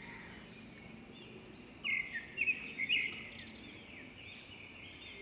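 Birds chirping, a cluster of short calls about two to three seconds in.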